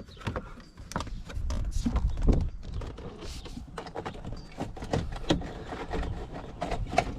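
Plastic steering column shroud being pulled and worked loose by hand: an irregular run of clicks, knocks and rattles of hard plastic trim, heaviest about two seconds in.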